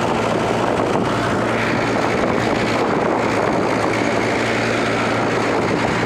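Mahindra 575 tractor's four-cylinder diesel engine running steadily under load at working RPM while driving a 7-foot Maschio rotavator through the soil, heard from the driver's seat near the upright exhaust.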